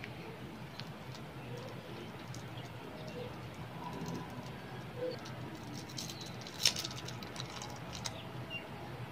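Faint crinkling of cellophane candy wrappers and light clicks as small wrapped candies are handled over a glass bowl, with one sharper click about two-thirds of the way in.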